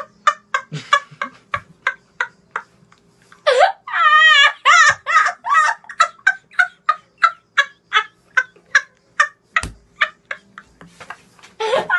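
A boy laughing hysterically: a long run of short, high laugh bursts, about four a second, with a louder, wavering stretch about four seconds in.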